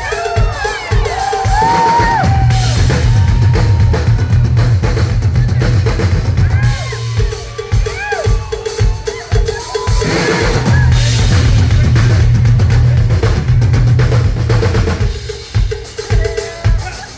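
Live rock band playing: a pounding drum kit and heavy bass under a sustained instrument tone, with a singer's voice rising and falling over the top.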